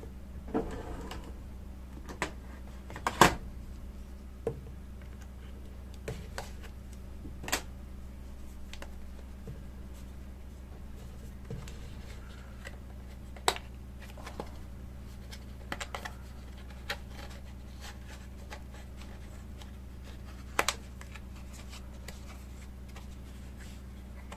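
Fingers handling and prying open the end flap of a small cardboard retail box: scattered light clicks, taps and scrapes of cardboard, the sharpest about three seconds in, over a steady low hum.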